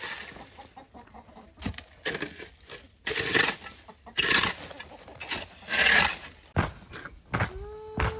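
Rubber boots crunching through crusted snow in a string of uneven steps. Near the end a chicken gives one drawn-out call that dips in pitch as it ends.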